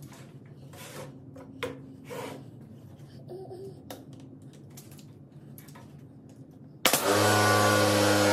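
Handling noise of light knocks and rubbing. About seven seconds in, a power tool starts abruptly and runs loud and steady, with a hum under a hiss.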